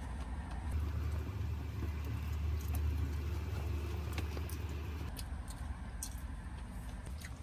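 Steady low rumble of a vehicle, with a few light clicks scattered through it, mostly near the end.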